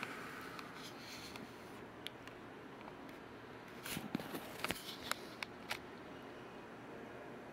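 Faint rustling handling noise with scattered sharp clicks, most of them bunched about four to six seconds in.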